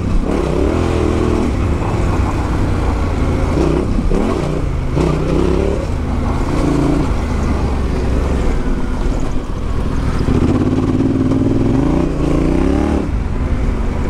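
Yamaha Ténéré 700's parallel-twin engine under way off-road, its revs repeatedly rising and falling as the throttle is worked and gears change.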